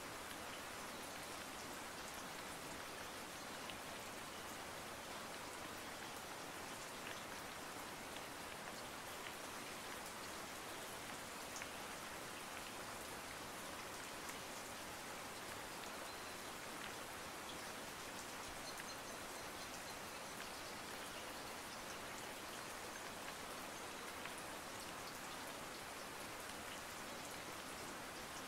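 Steady rain: an even hiss of falling rain with a few faint scattered drop ticks.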